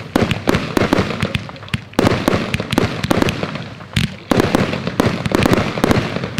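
Firework battery firing in quick succession: a dense string of launch thumps and bursting shells. Louder salvos set in about two seconds and about four seconds in.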